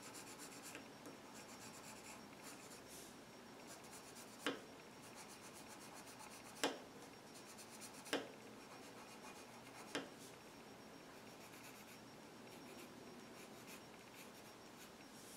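Faint scratching of a colored pencil sketching strokes on paper, with four short taps spaced a couple of seconds apart in the middle.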